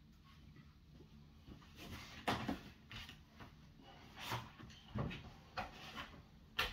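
Large cardboard packaging box being handled: a string of short scrapes and knocks as the box lid is worked loose and slid off, the loudest about two seconds in and near the end.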